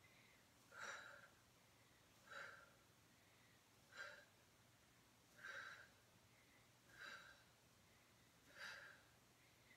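A woman's short, sharp exhalations in a steady rhythm, six puffs about one and a half seconds apart, each breathed out with a repetition of a side-lying crunch.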